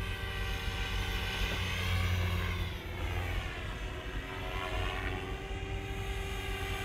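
Beam E5 electric RC helicopter in flight: its motor and rotor whine rises and falls in pitch in slow waves as it manoeuvres, over a steady low rotor hum.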